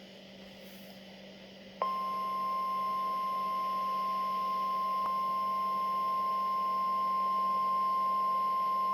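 Flood-warning alert tone, the single 1050 Hz warning alarm tone of NOAA Weather Radio: a steady, unbroken high beep that starts about two seconds in, over a faint low hum.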